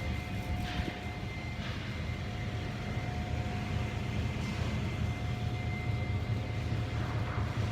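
Kamach 6090 laser cutting machine running: a steady low hum from its cooling and air equipment, with a thin steady whine above it and a few faint swells of noise.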